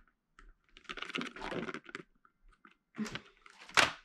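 Packaged craft supplies being handled: a run of clicking and rattling as items are moved about, then a sharp knock near the end as something hits the table.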